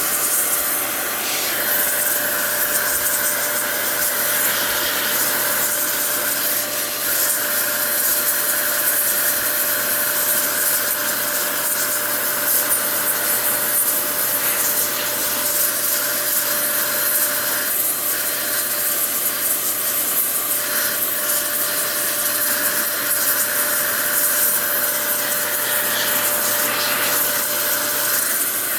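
Electric air blower running steadily with a constant whine and the hiss of its air stream, blowing dust out of a laptop.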